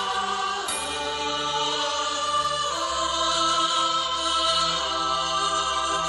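A Hindi film song with no words sung: held chords that change about every two seconds.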